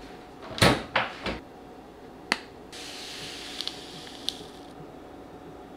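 A few knocks and one sharp click of kitchen things being handled, then a soft hiss lasting about two seconds as instant apple cider powder pours from a packet into a ceramic mug.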